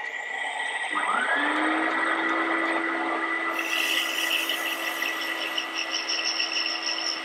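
Wood lathe running, its motor pitch rising about a second in and then holding steady. From about three and a half seconds in, abrasive sanding of the spinning wooden workpiece adds a steady hiss.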